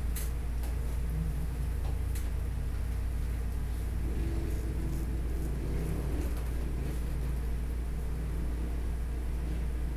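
A steady low rumble throughout, with a few faint, short scrapes of a straight razor shaving stubble on the jaw and neck.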